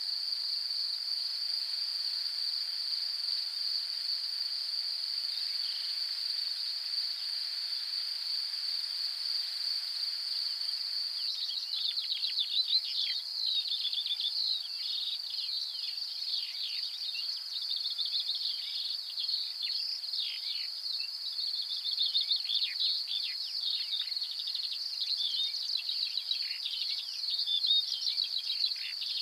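A steady high-pitched insect drone from the grassland, with dense bird chirping and song joining in about eleven seconds in and running on over it.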